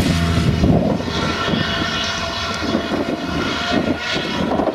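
Claas Jaguar self-propelled forage harvester running under load while chopping grass and blowing it into a trailer, with the engine of the tractor pulling the trailer alongside. A steady engine hum gives way about half a second in to a rougher, noisier drone.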